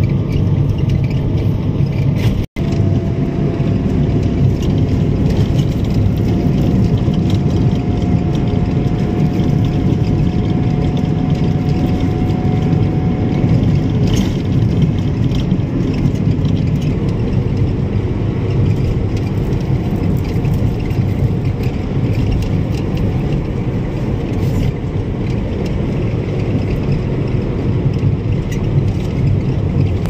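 A moving car heard from inside: a steady low rumble of engine and tyres on the road, with a faint whine that slowly rises in pitch for several seconds. The sound cuts out for an instant early on.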